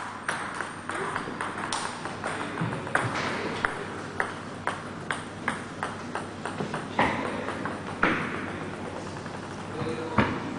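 Table tennis rally: the ball clicks sharply off the bats and the table several times a second, then the clicks thin out in the second half as the rally ends.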